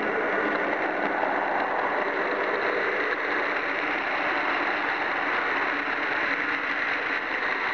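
HO-scale model diesel switcher, which has no sound decoder, and its train rolling past close by: a steady whirring hum from the locomotive's electric motor and gears and the wheels on the rails, purring like a real diesel.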